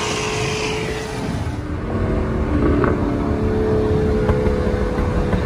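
Car engine and road noise from inside the cabin at highway speed. About two seconds in the hiss drops away and a steady engine drone takes over.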